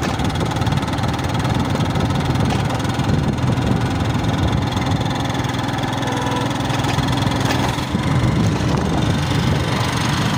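A vehicle engine running steadily while on the move, with a constant rush of road noise.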